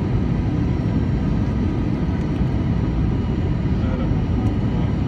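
Steady cabin noise of an Airbus A321 on final approach, heard from inside the cabin: a low, even rumble of the jet engines and airflow, with a faint steady whine above it.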